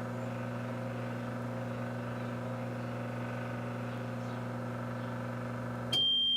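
Microwave oven running with a steady electrical hum, shutting off suddenly near the end as its timer runs out and a single long high beep starts.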